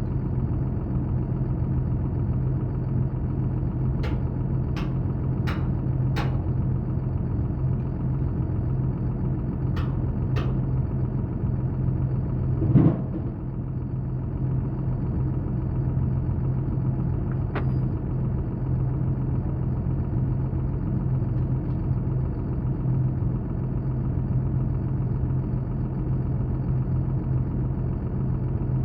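A steady low machine hum, like an engine or motor running, with a series of sharp clicks a few seconds in and a single louder knock about halfway through.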